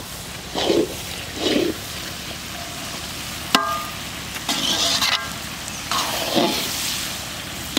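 Carrots and peas sizzling in a large metal wok while a long metal spatula stirs and scrapes through them in several short strokes. About three and a half seconds in there is one sharp metal clank that rings briefly.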